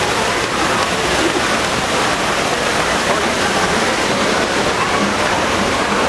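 Steady rush of water from a decorative indoor fountain splashing down into a rock basin.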